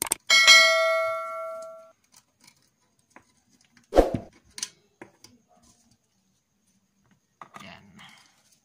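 A metal object struck once, ringing with several clear tones that fade over about a second and a half. About four seconds in comes a single heavier knock, then a small click, with some handling noise near the end.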